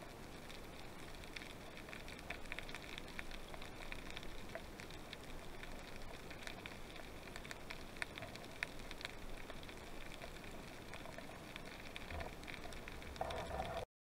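Underwater ambience picked up by an action camera in its housing: a steady crackle of faint clicks over hiss, with a louder rustle shortly before the sound cuts off suddenly near the end.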